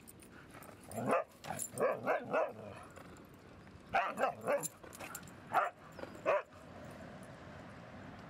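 Siberian huskies vocalising in rough play: short barks and yips in quick clusters, one group about a second in and another about four seconds in, with a couple of single calls after.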